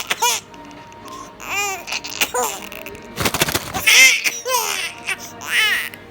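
A baby laughing and squealing in short, high-pitched bursts, about six times, with a brief noisy burst just after three seconds in.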